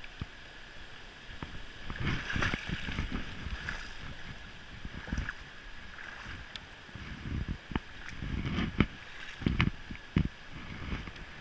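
Footsteps wading and splashing through shallow, rocky river water, with irregular sloshes and sharp knocks of shoes on stones.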